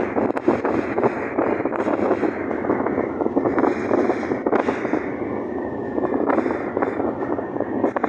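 Wind buffeting the microphone: a loud, rough, continuous rushing with constant crackly gusts.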